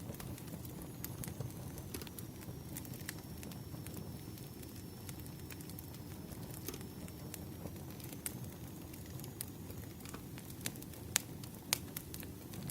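Wood fire crackling: a steady low rumble of burning logs with sharp pops at irregular intervals.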